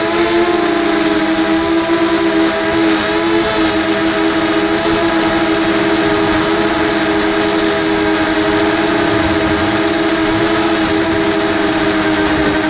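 Brushless motors of a 240-size FPV racing quadcopter whining steadily in flight, heard through its onboard camera with rushing air noise. The pitch rises briefly just after the start, then holds steady.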